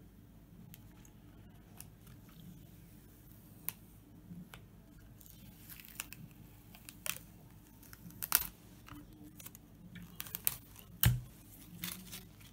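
Adhesive film being peeled by hand off a CNC-carved sign: a scatter of small crackles and tearing ticks that grows busier in the second half, with louder snaps about eight and eleven seconds in.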